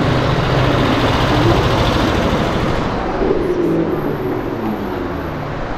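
Cars driving past: a low engine hum for the first few seconds, then a second engine's note rises and eases off again as it accelerates past.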